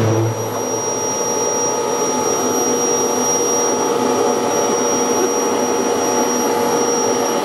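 Electric air blower on a pulse jet test stand, running with a steady whir and a few thin whining tones just after the engine shuts off. The engine's low rumble dies away in the first second. The fan keeps air moving through the hot engine to cool it so the heat does not damage the valve.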